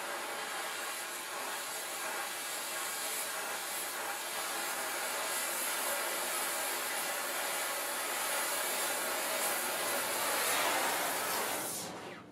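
Steady rushing hiss of a forge running while the steel heats to hardening temperature, cutting off sharply near the end.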